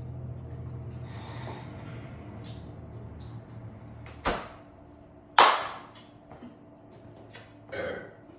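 A low steady hum that fades out about four seconds in, then a sharp knock and a louder one a second later, followed by a few lighter clicks and knocks, like objects being handled or set down.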